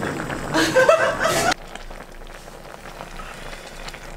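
A short voice in the first second and a half, then it cuts off suddenly and a pot of budae-jjigae (Korean army stew) is heard bubbling at the boil, a steady fine crackling hiss with faint pops.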